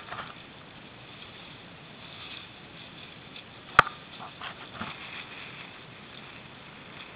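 Steady rush of wind and choppy shallow water, with a sharp click right at the start and another, the loudest sound, about four seconds in, followed by a few short splashy sounds.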